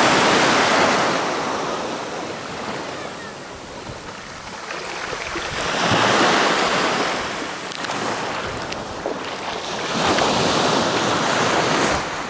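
Small sea waves breaking and washing up a pebble beach, swelling in three surges and easing between them.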